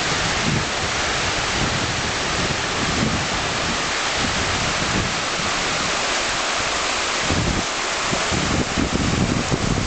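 Clinton River, a clear mountain river, rushing over shallow stony rapids in a steady loud hiss. Gusts of wind buffet the microphone with a low rumble, strongest in the last few seconds.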